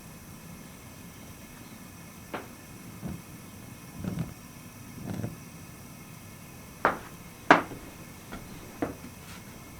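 A few scattered knocks and clicks, about eight in all, some with a dull thump beneath them; the sharpest comes about seven and a half seconds in.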